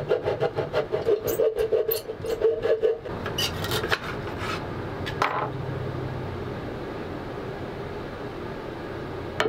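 Small handsaw cutting through the thin strip of wood left in a partial table-saw kerf, in quick back-and-forth strokes of about four a second. The sawing stops about three seconds in, followed by a few lighter scrapes.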